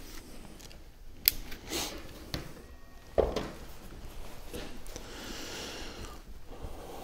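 Handling sounds: a sharp click a little over a second in, then a louder knock about three seconds in as a camera is set down on a wooden workbench. After that comes a soft rustle of a cloth being rubbed over the hands.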